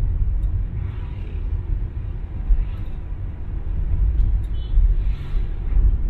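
Low, uneven rumble of a moving vehicle: road and wind noise that swells and eases.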